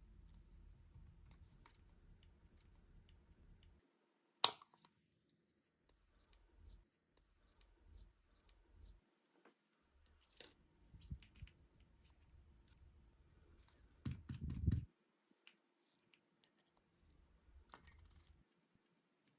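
Small metal tools and watch parts clicking and tapping on a work surface, with one sharp click about four seconds in and a short cluster of low knocks a little past the middle.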